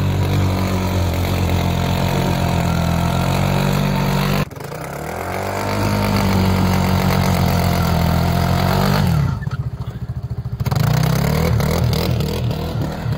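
Side-by-side UTV's engine revving hard under load as it churns through deep snow. The throttle cuts off abruptly about four seconds in, then builds again. Near the end the engine briefly drops to a pulsing lower run before revving up once more.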